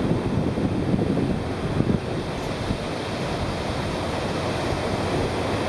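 Ocean surf washing, with wind on the microphone that gusts through the first two seconds and then settles into a steady rush.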